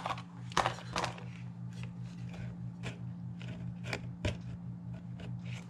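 Scattered light clicks and taps of things being handled, over a steady low hum.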